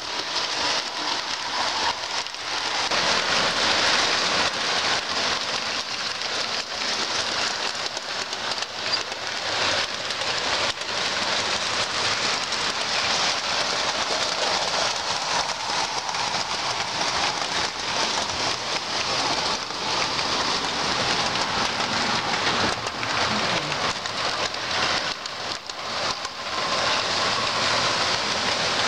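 O scale two-rail model trains running close by: a steady, rain-like hiss of metal wheels rolling on the rails, with a faint motor whine at times.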